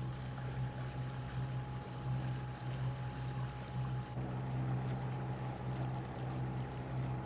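Twin diesel engines of a Leopard 45 sailing catamaran running steadily at cruising revs: a low, even hum with a faint steady whine above it.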